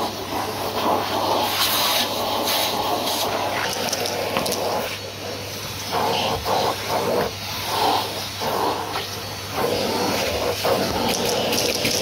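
Numatic Hetty cylinder vacuum cleaner running, its crevice tool sucking along carpeted stair treads. The suction noise rises and falls as the nozzle is pushed into and drawn along the carpet, over a steady motor hum.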